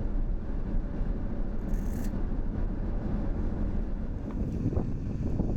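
Strong wind blowing across the microphone: a steady, gusting low noise, with a brief high hiss about two seconds in.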